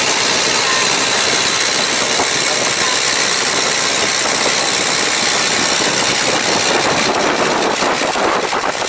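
An engine running steadily under a loud, even hiss.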